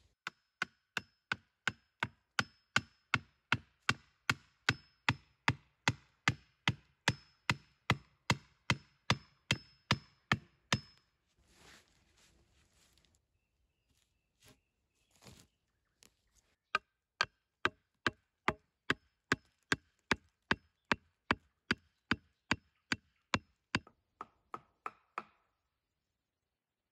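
Axe chopping wood in quick, even strokes, about two and a half a second, in two long runs separated by a few seconds of rustling and a couple of single knocks.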